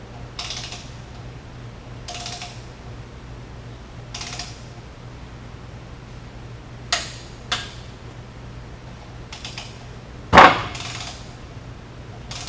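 Large torque wrench ratcheting a connecting-rod nut down on an aircraft engine crankshaft, a short rasping stroke about every two seconds. Then a few sharp metal clicks, and about ten seconds in one much louder sharp click.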